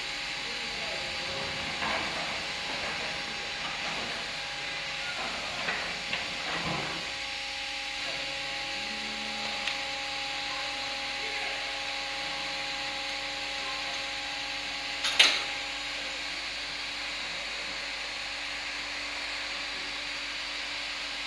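Steady hiss and hum of machinery on a concrete railway-sleeper casting line, with a few faint knocks in the first several seconds and one sharp clank about fifteen seconds in.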